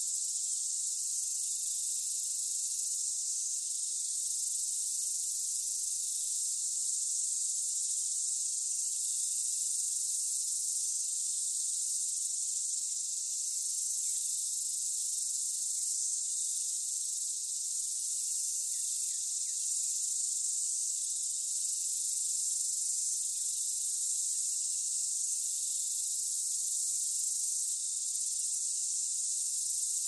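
Cicadas singing: a continuous high-pitched buzzing drone that holds steady without a break.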